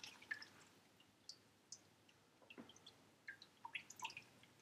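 Chicken stock dripping from a plastic colander into a stainless steel bowl of stock: scattered faint drips and plinks.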